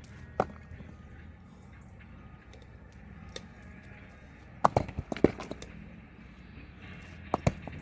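Stones knocking against one another as they are thrown or set onto a pile for a stone wall: a single knock about half a second in, a quick run of several clacks around the middle, and a few more near the end.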